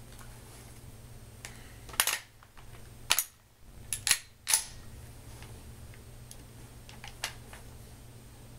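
A handful of short, sharp clicks and snaps, the loudest about two, three and four seconds in and a fainter one near the end, from an HPA-powered airsoft rifle being handled and readied at a chronograph.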